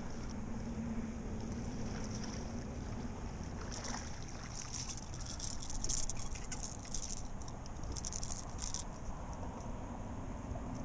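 Water splashing beside a kayak as a hooked fish is brought alongside and lifted out, over a steady hiss of wind and water. The splashing is densest in the middle few seconds.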